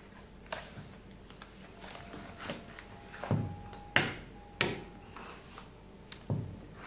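Small cardboard product box being opened and handled: the box slid apart and its contents set down on a table, giving a string of scattered taps, knocks and rustles, the loudest about four seconds in.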